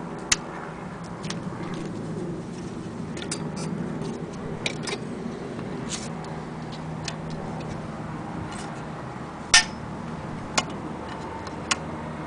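Sharp clicks and knocks of hard plastic being handled as a sewing machine's plastic extension table is taken off and moved about. There are a handful of separate clicks, the loudest about two-thirds of the way through, over a steady low hum.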